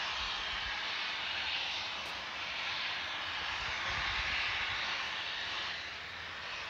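Safety valve of NSWGR 59 class steam locomotive 5917 lifted and blowing off steam in a steady, loud hiss: the boiler is at full pressure while the engine stands and uses no steam.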